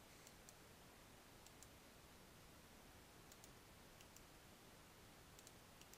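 Near silence with faint computer mouse clicks, several of them in quick pairs.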